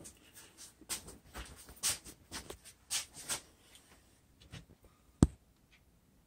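Light handling noises: scattered soft clicks and rustles, then one sharp knock a little past five seconds in. The box fan is not running.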